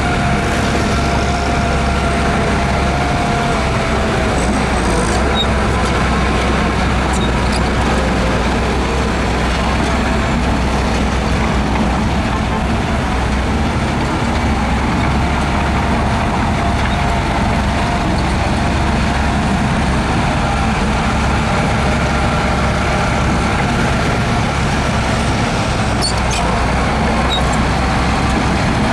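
Heavy diesel engine of earthmoving machinery running steadily under load, a constant low rumble with a faint steady whine over it. A few brief clicks come through, once about a third of the way in and again near the end.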